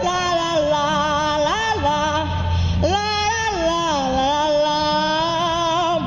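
A young woman singing a cappella into a microphone, a wordless 'la-la-la' refrain of long held notes that slide from pitch to pitch.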